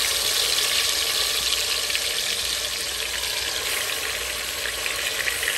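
Marinated meat searing in a pan of very hot oil: a steady, loud sizzle with dense crackling spatter.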